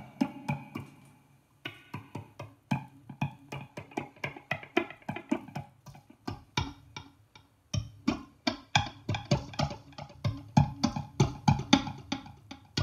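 Electronic drum sounds triggered by a chicken pecking at a rigged food can and bowl: an irregular patter of sharp percussive hits, several a second, with two short breaks.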